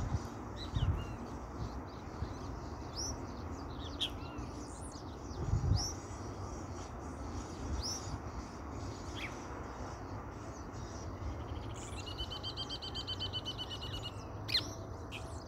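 Birds chirping over a soft background hiss: short high chirps every second or two, and near the end a rapid, evenly spaced trill lasting about two seconds. There are two dull low thumps, the louder one about halfway through.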